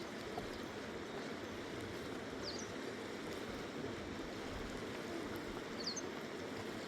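Fast mountain river rushing steadily, with a bird chirping briefly twice.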